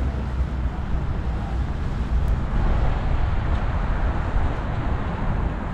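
Steady city street traffic noise on wet roads: a low rumble with a hiss of tyres and wind above it.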